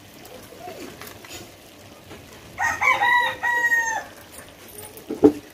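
A rooster crowing once, from about two and a half seconds in: a few quick notes, then a long held note that bends down at the end. A single sharp knock comes near the end.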